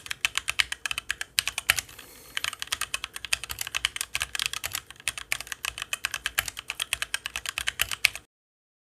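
HyperX Alloy Origins mechanical gaming keyboard being typed on quickly: a rapid, continuous stream of key clicks with a brief pause about two seconds in, cutting off suddenly near the end.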